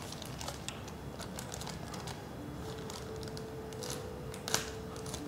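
Handheld rechargeable bag heat sealer pressed and slid along the edge of a thin plastic bag, giving quiet scattered clicks and plastic crinkling, with a sharper click about four and a half seconds in. A faint steady tone comes in about halfway through.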